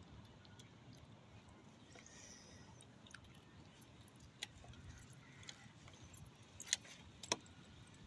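Small dog's metal collar tags jingling in a few sharp clinks, the loudest near the end, over a faint low wind rumble on the microphone.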